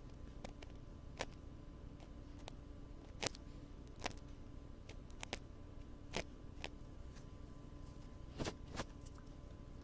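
Irregular, sharp scratchy clicks of ASMR ear-cleaning tools worked against a binaural ear microphone, over a steady faint mechanical hum.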